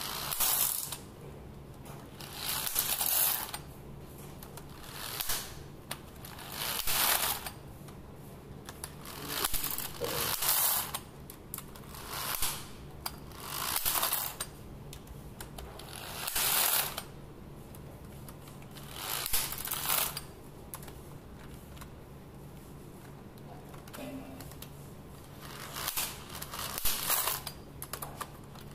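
Cordless electric screwdriver spinning out the engine's clutch cover bolts, one bolt after another: about a dozen short whirring runs of a second or so each, with pauses between them as it moves from bolt to bolt.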